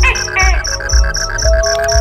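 Background music with a steady beat: a bass thump about twice a second under a high, cricket-like chirping pulse about five times a second, with held melodic notes.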